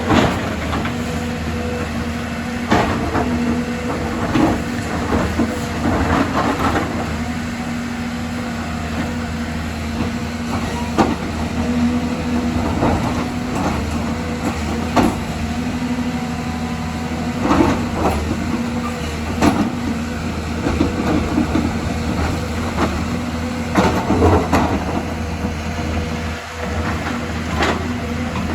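Excavator's diesel engine running steadily, with irregular clanks and scrapes every second or two as it works.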